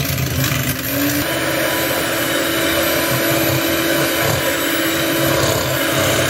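Electric hand mixer running, its steel beaters whipping cream cheese and sweetened condensed milk in a glass bowl into a frosting. The motor's whine steps up in pitch about a second in, then holds steady.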